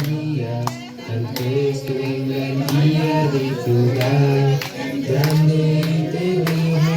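A group of voices, children among them, singing a song together, with hand claps keeping the beat about every two-thirds of a second.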